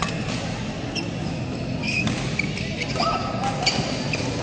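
Badminton rally: sharp racket strikes on the shuttlecock, the first as a smash at the start, and short high squeaks of shoes on the court mat, over the steady hubbub of a busy sports hall.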